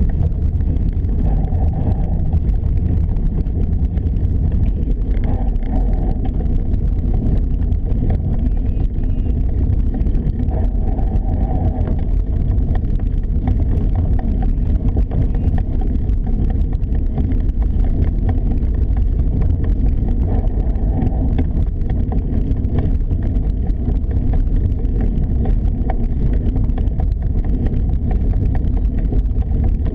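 Steady low rumble of wind buffeting a camera microphone as it moves quickly along a rough path, with a constant fine rattling underneath.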